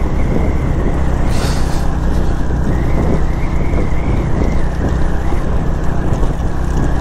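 Suzuki GS150 motorcycle's single-cylinder engine running steadily while riding along a dirt track, with road and wind noise mixed in.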